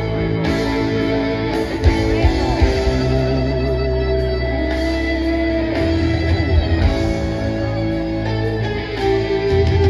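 Live rock band playing an instrumental passage, electric guitar to the fore over bass, keyboards and drums, with some bent guitar notes.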